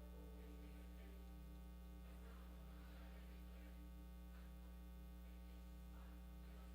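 Steady electrical mains hum from the recording chain, otherwise near silence, with a faint held tone underneath.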